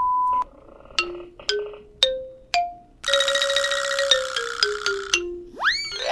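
A run of short comic sound effects: a steady censor-style beep ending just after the start, four plucked, mallet-like notes each higher than the last, a noisy tone stepping down in pitch for about two seconds, and a quick whistle-like sweep that shoots up and falls back near the end.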